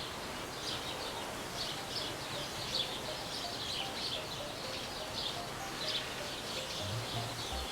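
Small birds chirping, a steady run of short high chirps several times a second, over outdoor background hiss, with a low rumble near the end.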